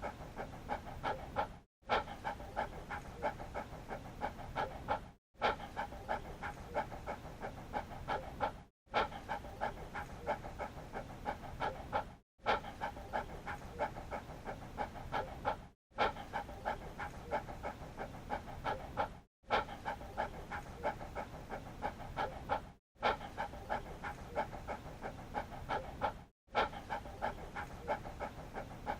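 Dog panting rapidly, quick even breaths in and out. The same stretch of panting repeats, broken by a brief silence about every three and a half seconds.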